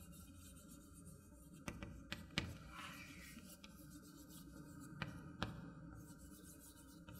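Chalk writing on a chalkboard: faint scratching of the chalk with a few short taps as strokes start, the sharpest about two and a half and five and a half seconds in.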